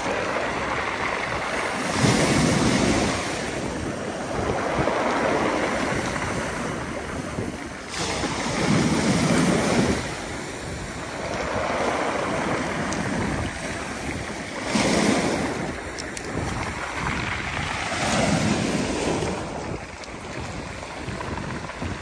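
Black Sea surf breaking and washing up a pebble beach, coming in surges every few seconds.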